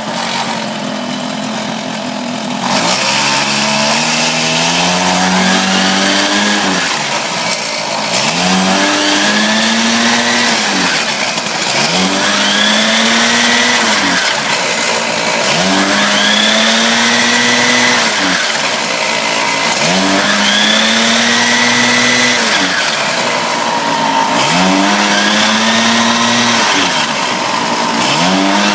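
Mini motorbike's small engine, running with its CVT belt drive exposed, idles for the first few seconds and is then revved up and let back down again and again, about every four seconds. Each rev spins the drive pulley faster so that its inner sheave moves out and the belt shifts toward the high-speed ratio.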